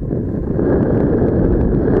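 Wind buffeting the microphone, a loud, steady rush that grows stronger about half a second in.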